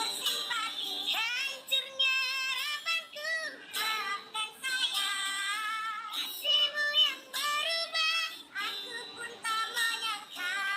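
Singers with strange, high-pitched voices singing a wavering, gliding melody, with almost no low end.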